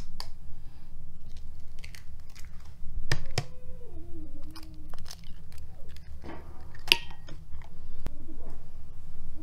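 Hard-boiled eggshells being cracked and peeled by hand: scattered small crunches and crackles, with a steady low rumble underneath.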